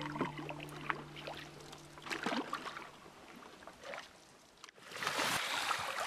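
Canoe paddles dipping and pulling through calm water with soft splashes and drips, under background music that fades out in the first couple of seconds. About five seconds in, a steady rush of water lapping and sloshing close by as the canoe moves through it.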